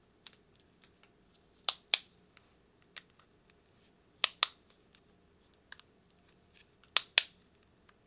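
Small ice-cream-shaped push-pop bubble fidget toy being popped with the fingers: three pairs of sharp clicks, a couple of seconds apart, with faint small ticks between.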